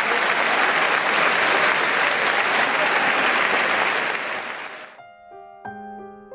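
A large audience applauding in a hall, the clapping fading out about four seconds in. Near the end, soft piano music begins with a few sustained notes.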